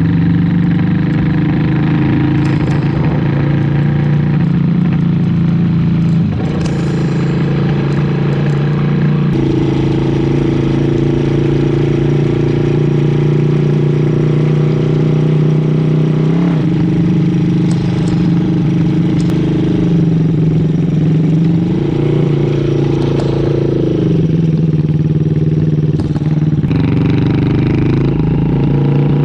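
1974 Honda CB360's twin-cylinder engine running steadily, with brief gentle rises in revs about two-thirds of the way through and near the end.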